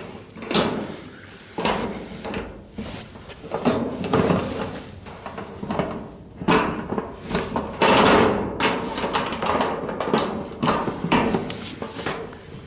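Bolt cutters working on a padlock: a series of irregular metal clanks and rattles as the jaws bite and are reset on the lock.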